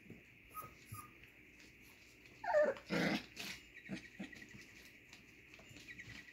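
Puppies playing, heard mostly as a short falling whine about two and a half seconds in, followed at once by a louder, rough growl, with a few small scuffling clicks around it.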